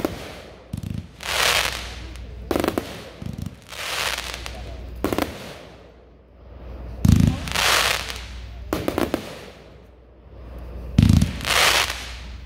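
A 49-shot consumer fireworks cake firing: every three to four seconds a dull launch thump, then sharp bursts and about a second of hissing stars.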